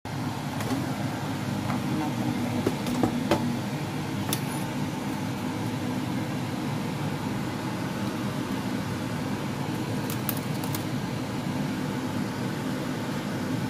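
Steady whirring hum of a kitchen fan or appliance motor, with a few light clicks and knocks of chicken pieces being handled from an air fryer basket onto a plate.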